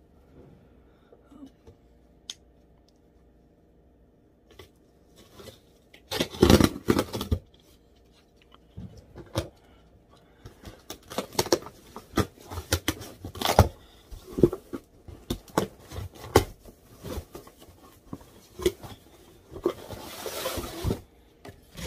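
A cardboard shipping box being opened by hand: packing tape tearing and cardboard flaps scraping and crinkling in irregular bursts. It starts after a few nearly quiet seconds, is loudest about six seconds in, and ends with a longer rustling tear.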